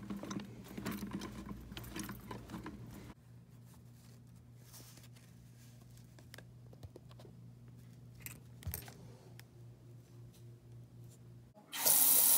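Small brass faucet cartridges clinking in a hand, then a few faint clicks as a faucet handle is worked with an Allen key. Near the end the bathroom sink faucet is turned on and water runs into the basin, the loudest sound.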